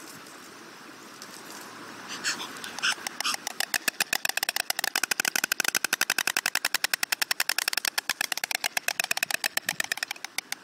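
A pair of white storks clattering their bills in a greeting display, heads thrown back. It is a rapid, even rattle of clacks that starts about two seconds in and thins out near the end.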